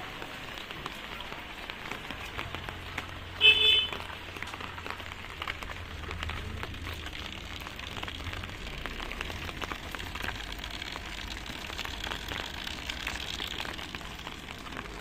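Light drizzle falling on wet pavement: a steady hiss of rain with fine drop ticks. About three and a half seconds in, a brief, loud, high-pitched tone cuts through.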